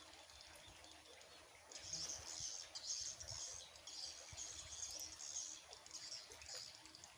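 Small birds chirping high and fast in repeated bursts, starting about two seconds in and going on almost to the end.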